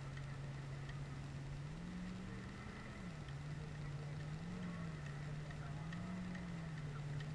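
Faint engine running steadily at a low idle, its pitch lifting briefly about two seconds in and twice more later.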